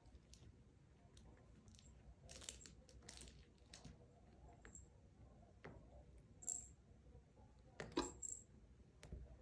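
Faint, scattered clicks and rustles of miniature poodle puppies chewing and pawing their toys on a rug, with a couple of short high pings and a sharper click about eight seconds in.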